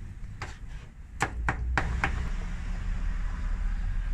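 Cleaver chopping shredded barbacoa beef on a cutting board: about five sharp knocks in the first two seconds, then a steady hiss.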